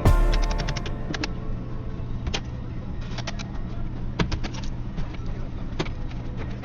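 Steady low hum of a car in motion, heard inside the cabin, with scattered light clicks and ticks, a quick run of them just after the start.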